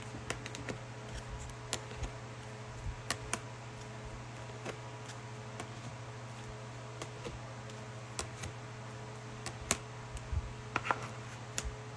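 Scattered light clicks and taps at irregular intervals over a steady low electrical hum, with a small cluster of clicks near the end.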